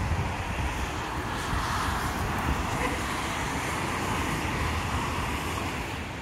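Road traffic on the wet road below: a steady hiss of tyres with a low rumble under it, swelling in the middle and easing off near the end.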